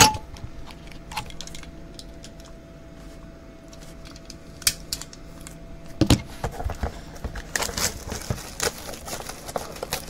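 Shrink-wrap on a trading-card hobby box being cut and torn off, plastic crinkling, with scattered clicks of handling, a sharp knock at the start and another about six seconds in.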